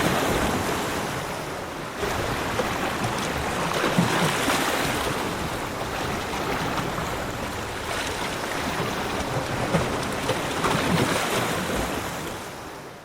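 Sea waves washing onto a shore in a steady rush, swelling and ebbing every few seconds, then fading out near the end.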